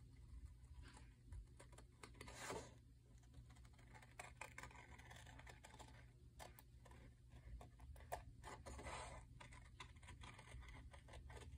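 Faint snipping of scissors cutting through cardstock: many small clicks from the blades, with a couple of short paper swishes.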